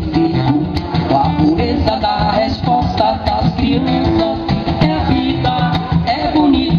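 A man singing into a microphone, accompanied by his own strummed electric guitar, amplified through a small PA.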